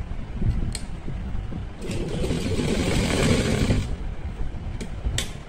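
Sewing machine running as fabric is fed under the needle, with a louder, faster stretch of stitching about two seconds in that lasts about two seconds. A couple of sharp clicks come near the end.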